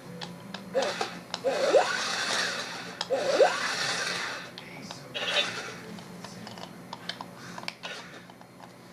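Remote-control BB-8 toy droid moving on its own: a motor whirring, plastic clicking and knocking, and two short rising electronic warbles about two and three and a half seconds in.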